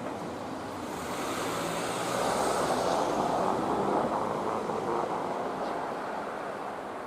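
A train passing by: the running noise swells, is loudest in the middle, then fades away.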